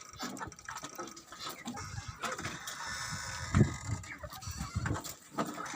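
Backyard poultry calling, with a loud low thump about three and a half seconds in.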